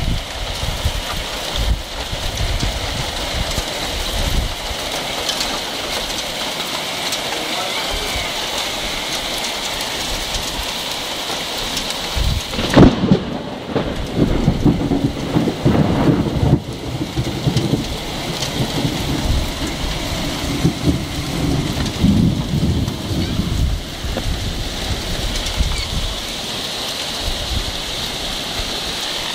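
Heavy rain falling steadily in a thunderstorm. About halfway through comes a sharp thunderclap, followed by low rumbling thunder that lasts for several seconds.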